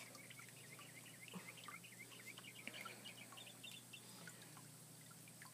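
Near silence, with faint short high chirps repeating in the background for a few seconds, then fading out.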